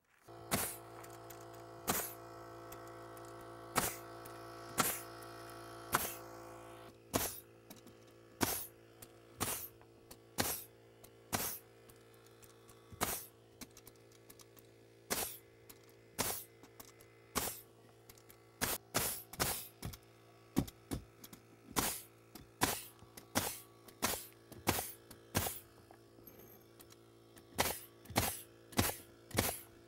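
Pneumatic framing nailer firing nails through plywood subfloor into the joists, a sharp shot about once a second at first and then faster, in quick pairs, later on. A steady hum runs underneath, louder for the first several seconds.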